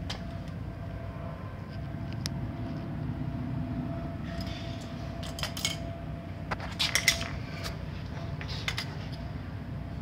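Light metallic clinks and taps from metal brake parts or hand tools being handled, in three small clusters, the loudest about seven seconds in, over a steady low background rumble.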